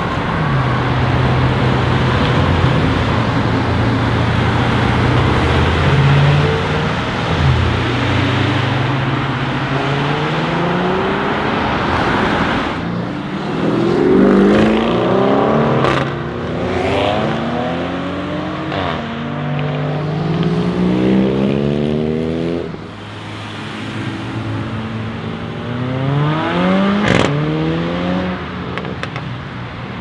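Audi RS6-R Avant C8's twin-turbo 4.0-litre V8, with its particulate filter deleted, running steadily, then accelerating hard through several quick upshifts, the pitch rising and dropping back at each shift. There is a sharp crack about halfway through, and another hard acceleration with a crack near the end.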